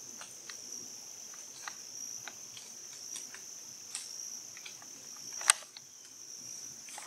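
Steady high-pitched insect chorus from the summer woods, with scattered light ticks and one sharper click about five and a half seconds in.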